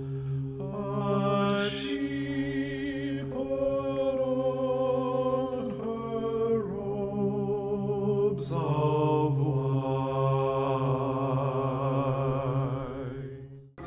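Chant-like vocal music: several voices hold long notes with a wavering vibrato over a steady low drone, moving to new notes every second or two, then cut off abruptly near the end.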